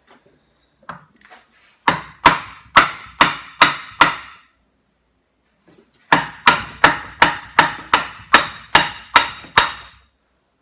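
Hammer blows on a Briggs & Stratton engine being disassembled: a run of about six sharp strikes, a pause, then about ten more at a steady two to three a second.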